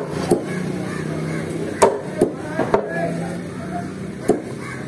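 A large knife chopping fish into chunks on a wooden block, giving about six sharp, irregular knocks as the blade strikes the wood.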